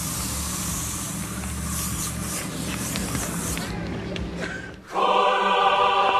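Axe aerosol body spray hissing steadily for about three and a half seconds, with a low hum underneath. About five seconds in, choral music starts abruptly.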